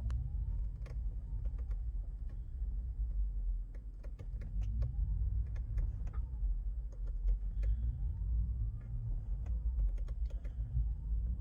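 2019 Tesla Model 3 rolling slowly over a low rumble, its electric drive whine rising and falling several times as the accelerator is released and gently pressed again. Scattered clicks and knocks come from under the car, which the owner says sounds like something loose.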